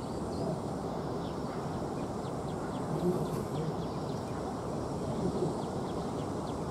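Steady low rumble of distant jet engines across an airfield, with faint, quick high chirps of birds scattered over it.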